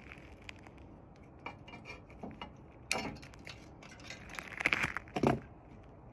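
Scattered metallic clinks and knocks from hand tools working on a mini bike's small engine, a few separate taps and then a louder cluster of knocks about four and a half to five and a half seconds in.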